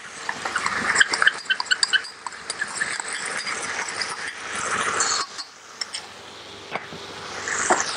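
Onion, garlic and sauces sizzling in a hot steel wok, a steady hiss with many small pops and crackles. The sizzle drops briefly about five and a half seconds in, then picks up again.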